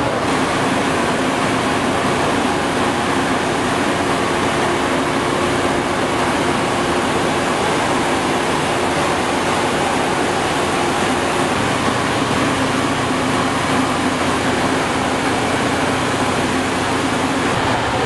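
XCMG XLZ230K cold recycler at work, its engine and milling rotor making a steady, unbroken drone with a low hum held under it as it chews up and recycles the road surface.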